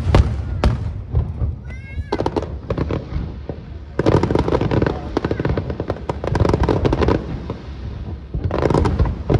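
Aerial fireworks going off: a run of sharp bangs over a low rumble, then dense crackling bursts from about four seconds in and again near the end.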